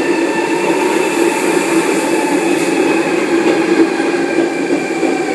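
Sydney Trains Tangara electric train running into the platform, a steady whine of several tones over rumbling wheel and rail noise.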